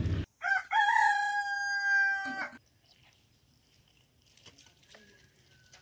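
A rooster crowing once, starting about half a second in: a short first note, then a long held note that falls slightly over about two seconds and stops abruptly.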